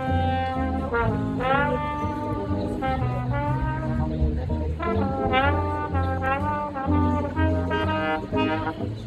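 Jazz trombone solo, phrases full of notes that slide and bend in pitch, over a plucked upright bass playing a walking line.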